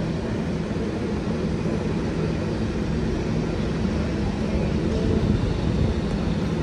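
A New York City Subway R188 train standing at the platform with its doors open, its onboard equipment running in a steady hum. The doors slide shut near the end.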